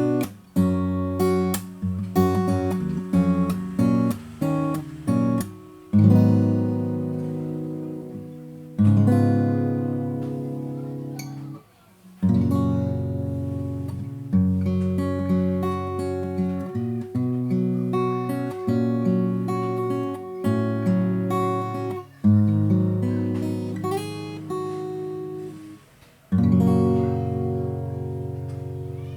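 Yamaha FG-720 acoustic guitar (spruce top, mahogany back and sides, bone saddle) being played: quick picked and strummed notes at first, then full chords struck and left to ring out and fade, several times.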